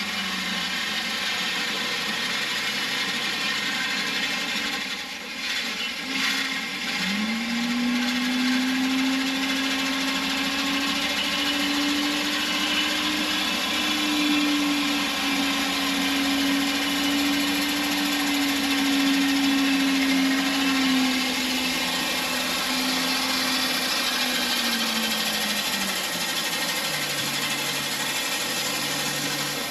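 Gravel spreader truck laying gravel: a steady hiss of stone pouring from the rear conveyor, with the truck's engine whirring. The engine pitch climbs about seven seconds in, holds, and falls back near the end.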